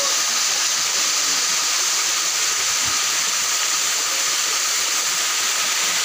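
Waterfall about 40 feet high pouring down a rock face: a steady, even rush of falling water.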